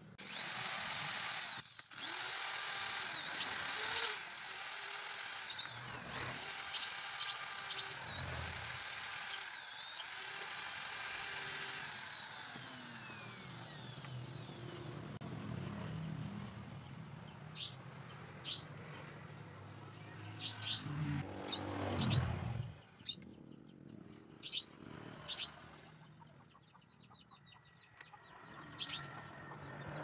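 Electric hand drill boring holes in a bamboo hoop, in about six short runs in the first twelve seconds, the motor whining up to speed and winding down after each one. Then come light clicks and handling of the bamboo, with birds chirping in the background.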